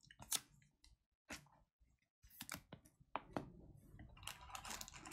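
Trading cards being handled and flicked through: a few separate sharp clicks, then from about two seconds in a denser, faster run of small clicks and rustling.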